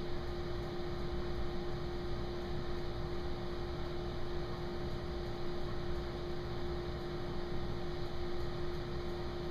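Steady electrical hum: one constant tone over an even background hiss, unchanging throughout.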